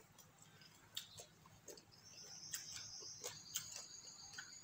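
Faint, irregular clicks of chewing with the mouth closed. From about two seconds in, a steady high-pitched trill joins them.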